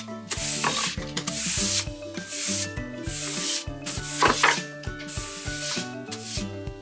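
Wallpaper smoothing brush swept across freshly hung wallpaper in repeated rubbing strokes, about one a second. Soft background music with held notes plays underneath.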